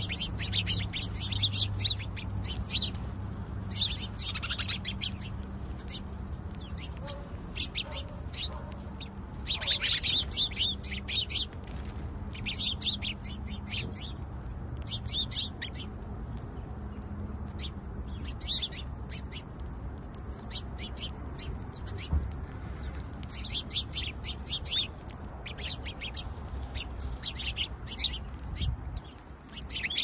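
A flock of house sparrows chirping, in irregular bursts of quick, overlapping chirps. A low steady hum runs underneath for about the first half.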